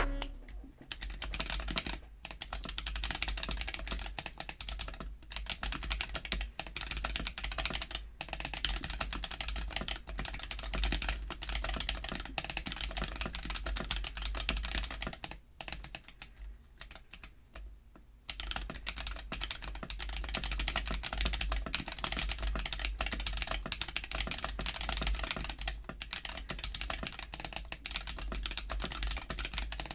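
Typing on a Womier K66 mechanical keyboard with stock Akko CS Ocean Blue tactile switches and PBT keycaps: a fast, continuous clatter of keystrokes. A little past halfway the typing slows for a couple of seconds.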